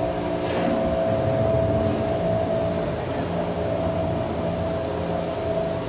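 Steady droning hum with several held tones over a low rumble, heard aboard a dark-ride boat moving through a darkened tunnel.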